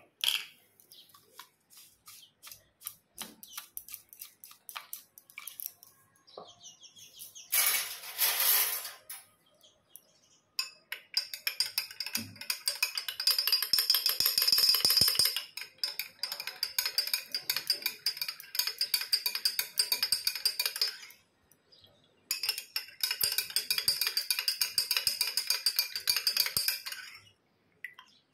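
Metal spoon stirring fast in a glass of sweet-yogurt sherbet, clinking rapidly against the glass in a long run, stopping for about a second, then clinking again. A few scattered clicks and a short rush of noise come before the stirring starts.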